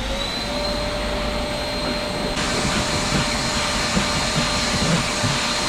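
Vacuum cleaner switched on and spinning up to a steady whine over rushing air, sucking loose residue off a car headliner board. The hiss turns brighter about two seconds in.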